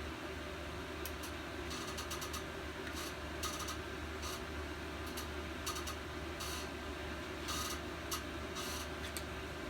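Short bursts of rapid ratchet clicking as Torx screws are turned out of a small engine, over a steady low hum.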